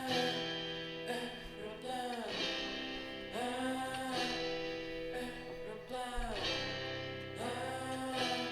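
Guitar-led music played back through an Akkord 201 stereo amplifier and its loudspeakers, picked up by a camera microphone.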